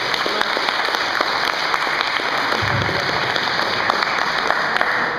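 Audience applauding steadily, dying away near the end, with a brief low thump partway through.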